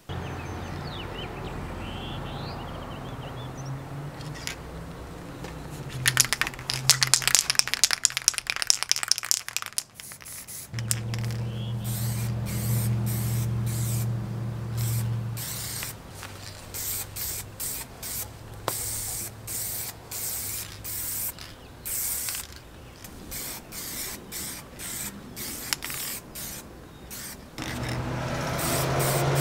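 Aerosol spray paint can: first shaken, its mixing ball rattling rapidly for a few seconds, then sprayed in many short hissing bursts that stop and start as the paint goes on in light passes.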